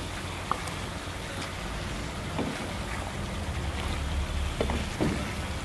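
Chicken pieces sizzling in a pan of oil and onions as they are stirred and sautéed, with a few knocks of the stirring utensil against the pan over a steady low hum.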